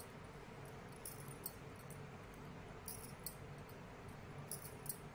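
Knitting needles clicking and scraping against each other as stitches are worked, faint short clicks coming in small clusters about every second and a half.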